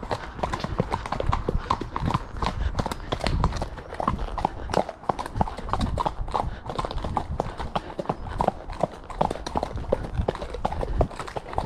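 Horses' hooves striking a dirt bridlepath: a quick, continuous run of clip-clop footfalls from ridden horses moving along, over a low rumble.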